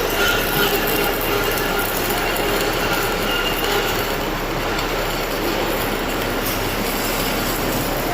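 Shielded metal arc (stick) welding arc crackling steadily, with a steady low hum underneath.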